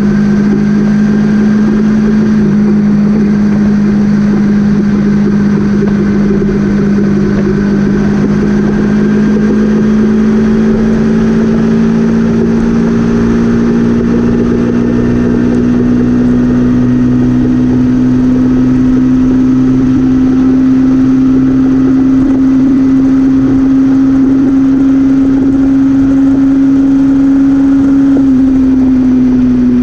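Motor vehicle engine running steadily under way, its pitch slowly rising as it speeds up and falling a little near the end.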